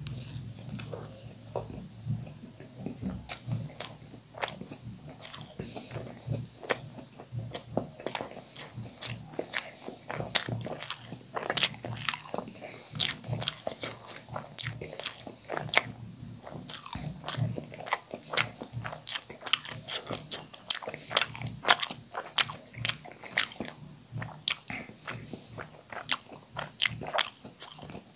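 Close-miked chewing of spicy noodles and boiled egg: irregular wet mouth clicks and smacks, a few a second.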